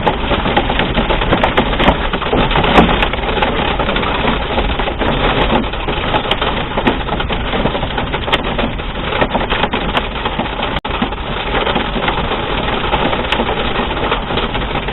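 Hail and heavy rain pelting a vehicle, a dense, unbroken clatter of many small hard hits.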